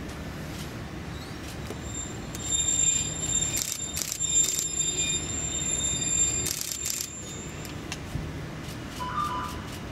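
Caltrain Stadler electric train rolling slowly toward the camera with a low rumble. From about two and a half to seven seconds in, its wheels squeal high-pitched in loud bursts. A brief two-note tone sounds near the end.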